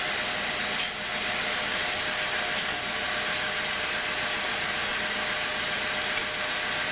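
Homemade sawmill machine running steadily between cuts, a constant mechanical hum with a few steady tones. It dips briefly about a second in.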